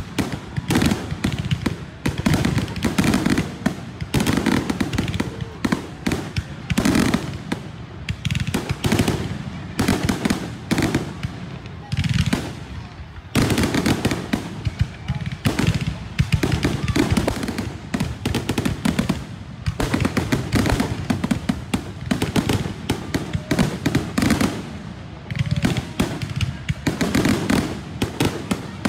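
Fireworks display going off: sharp bangs follow one another several times a second, in waves that swell and ease about every second or two.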